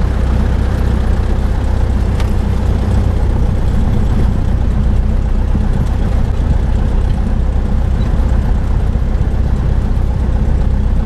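Cessna 172's piston engine and propeller running steadily at low power, heard from inside the cabin as the plane rolls along the ground.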